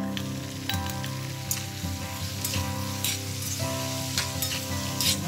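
Marinated chicken sizzling in hot oil in a cast-iron kadai as it is tipped in and stirred with a steel ladle, which clinks and scrapes against the pan several times.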